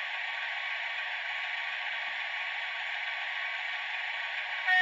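A Märklin sound decoder in an H0-scale BR 232 'Ludmilla' diesel model, playing through its small built-in speaker: a steady hiss with no bass. Right at the end a much louder horn-like tone begins.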